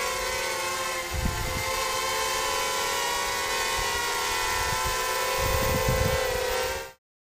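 Mini FPV hexacopter's six small brushless motors (RCX 1306 3100kv on 3s, spinning 4045 props) buzzing steadily in flight, with low rumbles about a second in and again near the end. The sound cuts off suddenly near the end.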